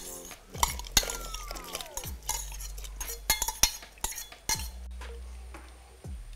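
Steel bowl clinking and knocking against the rim of an aluminium pressure cooker as soaked red rice is tipped into boiling water: a run of sharp clinks over about four seconds. Near the end, a wooden spatula stirs the pot.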